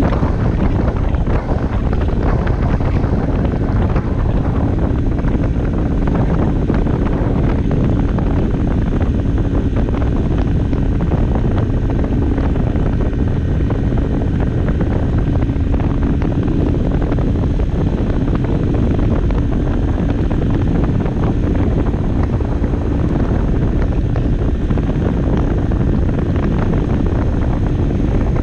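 Barton Volcano 50cc moped running at a steady cruising speed, its engine note holding steady under heavy wind buffeting on the microphone.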